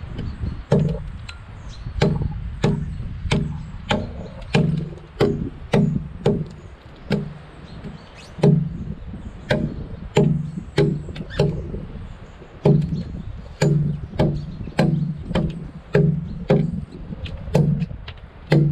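Axe blade chopping into a peeled log with steady, evenly spaced strikes, roughly one to two a second, cutting the top of the log by hand.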